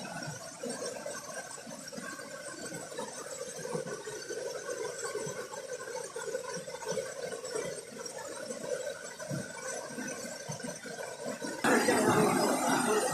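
Steady rush of water from a small forest stream or cascade. About three-quarters of the way through it suddenly becomes much louder.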